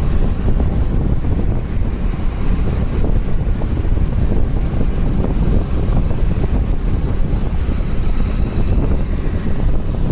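Wind buffeting the microphone of a helmet-mounted phone on a moving motorcycle: a loud, steady low rumble.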